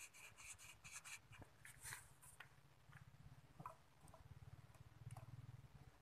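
Near silence: faint small clicks and scrapes of the plastic blender jar base being handled and turned, mostly in the first two seconds or so, over a low faint hum.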